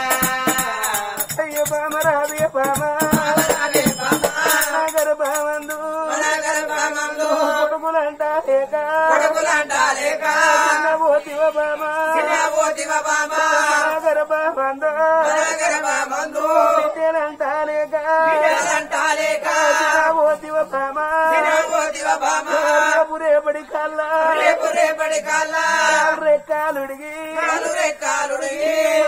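Oggu Katha folk music: a male voice singing in long wavering phrases over a steady held note, with a jingling rattle of bells keeping the beat.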